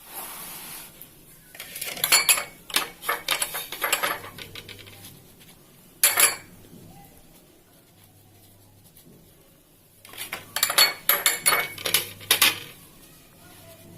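Cutlery clinking and scraping against a plate while tomato sauce is spread onto bread slices, in three clusters of sharp clicks with quiet pauses between.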